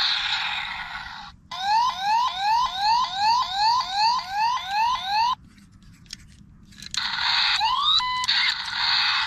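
A toy police motorcycle's electronic siren sounding in quick rising yelps, about three a second, for about four seconds before cutting off suddenly. Near the end comes a short rising chirp and a beep, with a hiss before and after.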